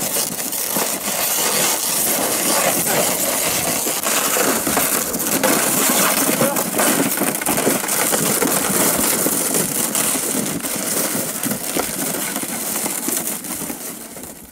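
Crunching and scraping on packed snow as a plastic sled is pulled along with footsteps beside it, a dense crackly noise that fades out near the end.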